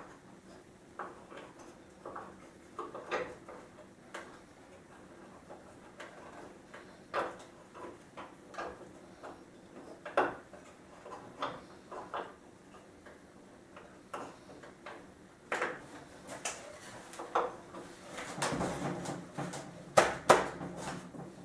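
Scattered light clicks and knocks as a turnbuckle is turned to tension the steel cable holding a wooden chair together, coming irregularly and growing busier and louder near the end.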